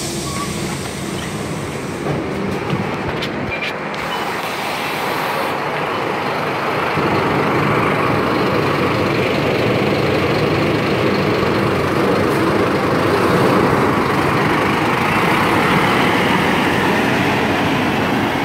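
A city bus's diesel engine running close by as the bus pulls away from the stop, growing louder about seven seconds in as it accelerates.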